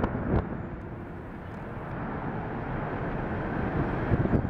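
Boeing 777-200's twin jet engines at takeoff thrust during the takeoff roll: a steady, noisy roar, strongest in the low range, that grows louder over the last three seconds as the airliner accelerates toward the camera position.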